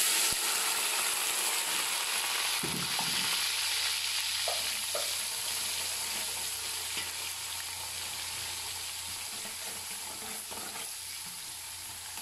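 Sliced onions sizzling in hot oil in a large aluminium pot, the sizzle starting at once as they drop in and slowly quieting. They are stirred with a metal ladle, which knocks lightly against the pot a few times.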